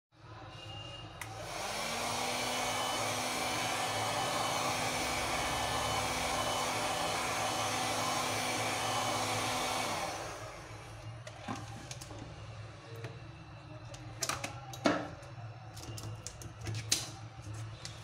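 Hot air gun blowing steadily over an Honor 8X's back glass, heating it to soften the adhesive before the panel is opened; its motor spins up about a second and a half in and winds down about ten seconds in. After it stops come a few sharp clicks and taps.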